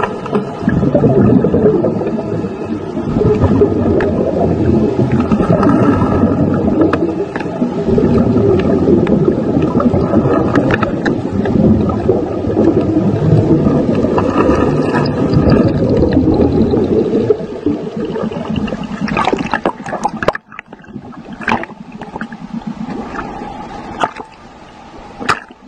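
Muffled underwater noise picked up by a camera held in the sea: a dense rumble of moving water with a faint steady whine above it. About 18 seconds in the rumble drops away, and the rest is quieter, broken by a few sharp knocks as the camera comes up to the surface.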